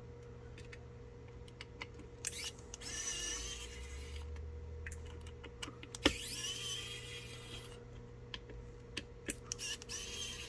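Mini electric precision screwdriver whirring in about three short runs of a second or two each as it backs screws out, with small clicks between the runs.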